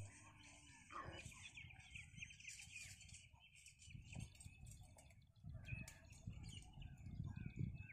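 Faint birdsong: many small birds chirping at once in a continuous chatter, with an uneven low rumble underneath.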